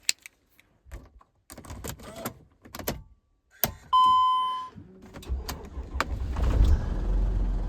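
Sprinter van engine started after two months parked: a few clicks and key handling, a single beep about four seconds in, then the engine catches at once just after five seconds in and settles into a steady idle.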